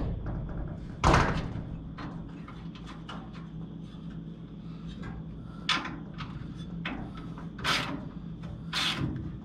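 A few sharp knocks and clunks of the 1969 Firebird's front bumper and nose parts being worked into place by hand, the loudest about a second in, over a steady low hum.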